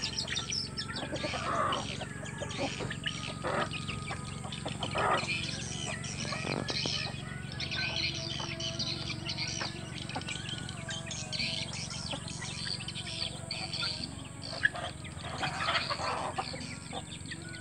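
Village chickens clucking and half-grown chicks cheeping in short, frequent calls while they peck at feed, with a few sharp taps in between.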